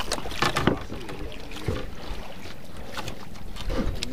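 Water rushing and slapping along the hull and bamboo outriggers of a small outrigger fishing boat, with wind on the microphone and a few short knocks from handling the line.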